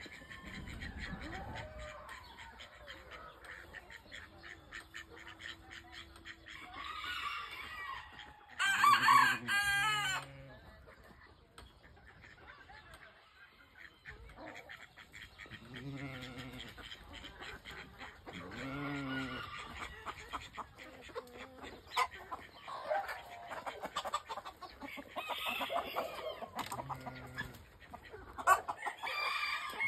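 Chickens clucking, with a rooster crowing loudly about nine seconds in and shorter crows a few more times later.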